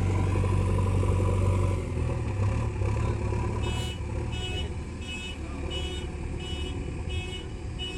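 JCB 3DX backhoe loader's diesel engine running under load, easing off about two seconds in. About halfway through its reversing alarm starts beeping steadily, roughly one and a half beeps a second, as the machine backs up.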